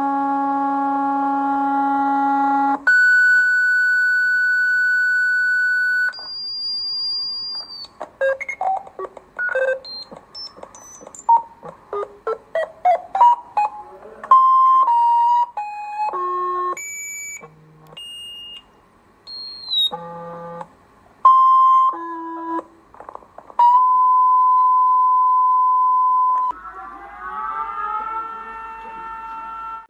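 Synthesized electronic alert tones in a changing sequence. It opens with a harsh buzz of about three seconds, then steady single tones at several pitches and a fast run of short bleeps and chirps. A held mid-pitched tone follows, and near the end a chord of tones slides up in pitch and levels off.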